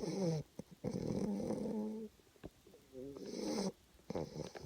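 Loud snoring in four drawn-out breaths, each carrying a wavering, whiny tone, with short quiet pauses between them.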